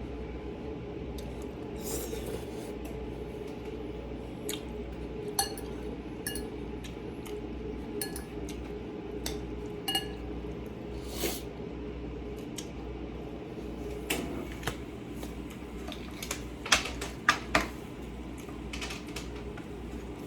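Eating utensils clinking and scraping against a bowl, scattered light clicks with a quick run of sharper clinks near the end, over a steady low hum.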